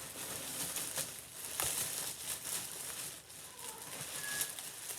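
Crinkling, rustling handling noise of clothing being pulled from a box and handled, with sharper rustles, the strongest about one and a half seconds in.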